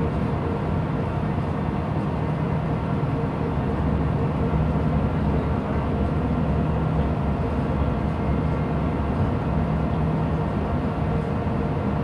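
Steady low drone of a cargo ship's machinery, a constant hum with a low rumble beneath it.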